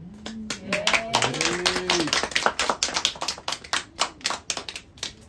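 A small audience clapping, with a few short calls from voices in the first two seconds; the claps thin out and stop near the end.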